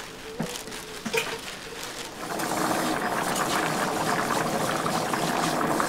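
Liquid bubbling in a cooking pot, a dense steady bubbling that sets in about two seconds in after a few light clicks and knocks.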